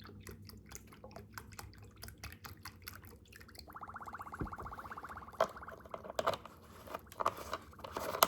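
Chicken stock pouring into a small cooking pot: a run of small splashes and trickling, then a steadier stream for about a second and a half, followed by a few light knocks.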